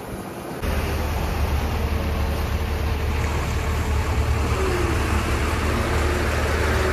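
Diesel engine of a heavy multi-axle goods truck running close by with a deep, steady drone as the truck rolls slowly up to the fuel pump; the drone starts abruptly about half a second in, after fainter road noise.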